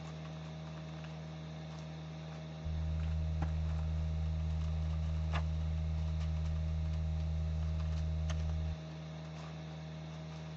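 Steady low electrical hum that grows louder for about six seconds in the middle, then drops back suddenly, with a few faint clicks.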